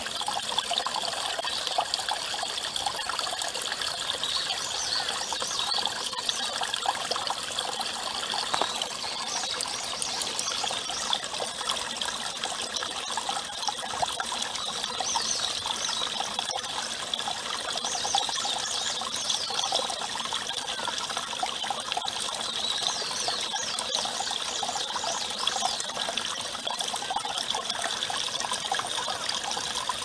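A thin stream of water trickling steadily from a dragon-head spout into a brimming glazed earthenware basin, which overflows into a stone basin below.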